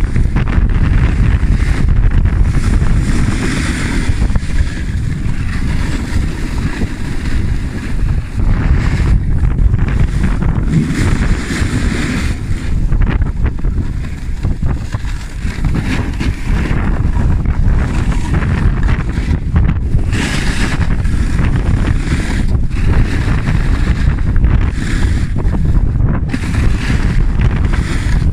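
Heavy wind buffeting on the microphone during a fast downhill run, rumbling and gusting, with the hiss of carving on packed snow swelling and fading turn by turn.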